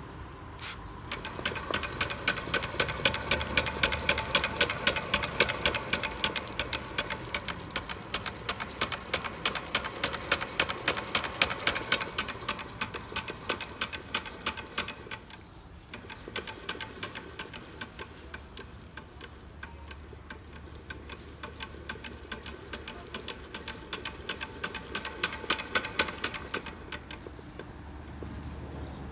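Freshly rebuilt Honda Dash crankshaft, pressed together with a new Yoko connecting rod, spun by hand in a truing stand, giving a fast, even ticking while it turns. It stops briefly about halfway through, then runs again and fades near the end. The spin checks that the rebuilt crank turns true and free.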